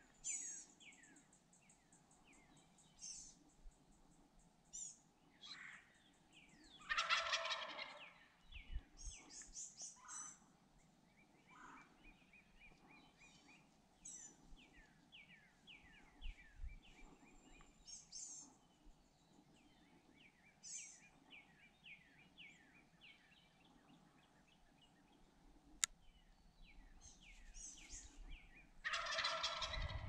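Wild turkey gobbling, once loudly about seven seconds in and again near the end, while songbirds chirp throughout.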